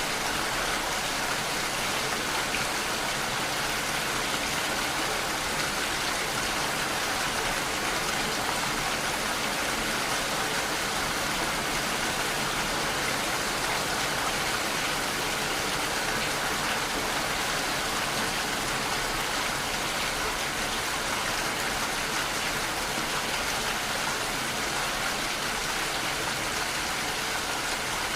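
Steady rain: an even, unbroken hiss with no separate drops or changes.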